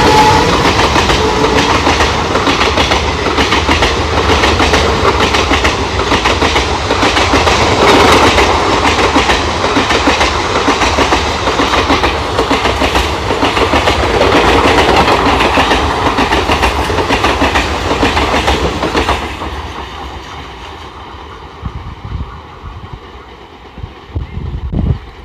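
Indian Railways express train's passenger coaches passing at speed on the track beside the platform: a loud rumble with rapid wheel clatter over the rail joints. About nineteen seconds in the last coach goes by and the sound falls away as the train recedes, with a brief knock near the end.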